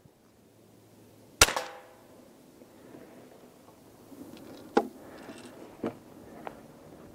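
A single sharp shot from a modified pre-1975 Crosman 760 pump air rifle firing a BB, with a short ringing tail. A few seconds later come three fainter clicks as the rifle is worked again.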